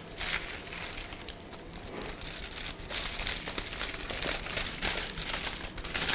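Aluminium foil crinkling and rustling as a baked foil parcel is lifted onto a plate and torn open.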